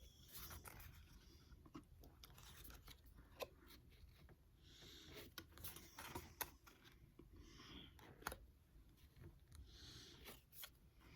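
Pokémon trading cards being handled: faint rustling and crinkling with many small clicks and taps as cards slide and knock together.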